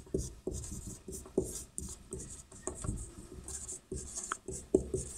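Faint handwriting: irregular short scratching strokes of a pen or marker, with light taps as it meets the writing surface.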